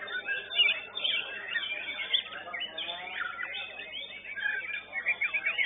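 White-rumped shamas (murai batu) singing in a contest: a dense, unbroken stream of quick overlapping whistles, chirps and trills.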